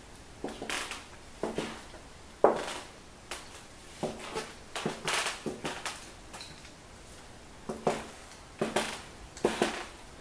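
Footsteps on a hard tile floor in empty rooms: irregular walking steps, each a sharp knock with a short echo, pausing for a second or two past the middle.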